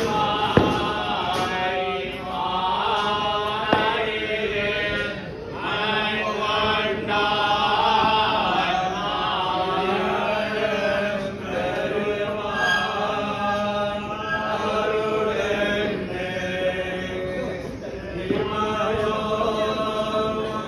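Group of men chanting verses in unison in the Srivaishnava temple style, over a steady low hum, with two sharp clicks near the start.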